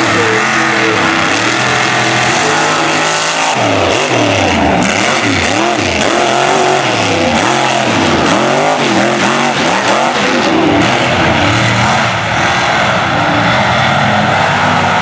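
Mega truck engines revving hard, the pitch climbing and dropping again and again as the trucks power through loose dirt.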